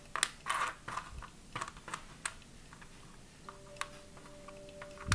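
Small metal and plastic charms clicking against each other and the tray as a hand picks through and moves them: scattered light clicks, most in the first two seconds.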